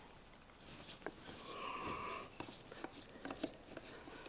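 Faint clicks and small scrapes of a screwdriver working at screws in the metal motor housing of a Rockwell 368 circular saw, with a brief steady high tone about halfway through.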